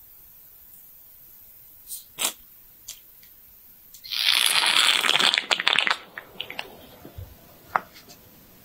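A rubber ear-blower bulb puffs air into the ear. About four seconds in, a loud rush of air lasts about two seconds, after a few light clicks, and more faint clicks and taps follow.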